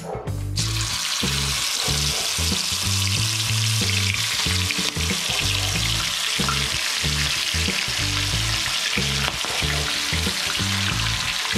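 Masala-coated sea lice (sand fleas) deep-frying in a pot of hot oil: a steady sizzle that starts about half a second in as they are spooned into the oil. Background music with a repeating bass line plays underneath.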